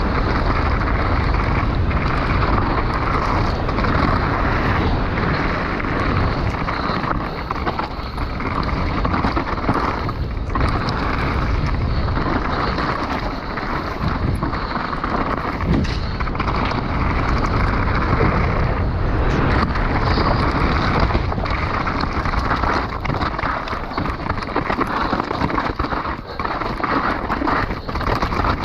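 Steady rush of wind and propeller noise from an FPV racing drone flying at speed, with short knocks and rattles scattered throughout.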